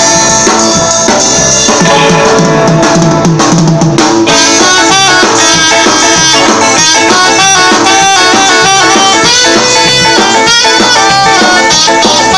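Live band playing loudly: electric guitar, bass, drum kit and saxophone.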